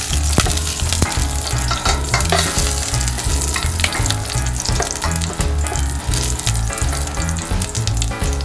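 Garlic cloves sizzling in hot cooking oil in a stainless steel pot, with many small crackles and pops, and a wooden spatula scraping and knocking against the pot as they are stirred.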